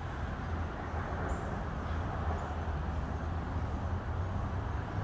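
Outdoor street ambience: a steady, uneven low rumble, with a few short high chirps about a second apart.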